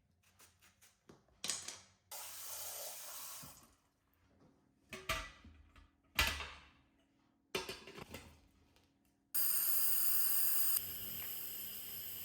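Kitchen sounds: a tap runs briefly, then a few knocks and clatters of utensils. From about nine seconds in comes a steady loud hiss of water or food sizzling in a pan, which eases a little before the end.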